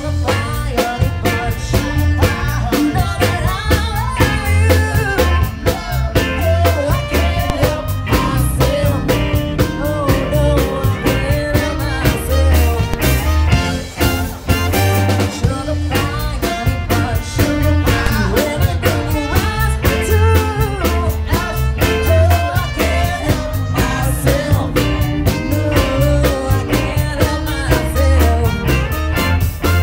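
Live band playing an up-tempo soul number with a steady beat on drum kit, electric bass, keyboard and saxophone, with a woman singing lead.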